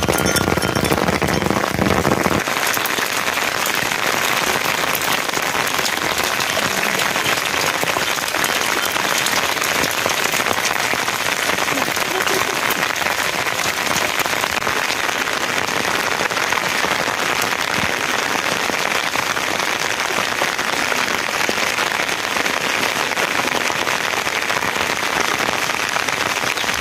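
Steady rain falling on wet ground. It follows a short different sound of about two seconds at the very start.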